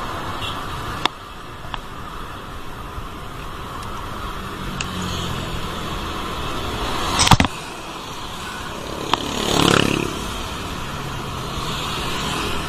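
Road traffic with cars going by, one vehicle passing close about ten seconds in. A few sharp clicks and a louder knock about seven seconds in stand out over the traffic.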